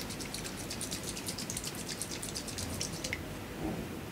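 A small capped glass sample cell holding water and DPD free-chlorine reagent being shaken rapidly by hand: a fast, even patter of liquid sloshing and small ticks, which stops about three seconds in. The shaking mixes and dissolves the reagent into the sample.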